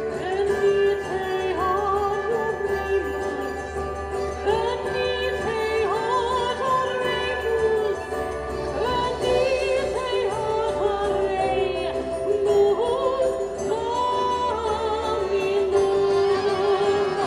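Christmas show music played over loudspeakers: singers holding notes with vibrato over a full instrumental backing.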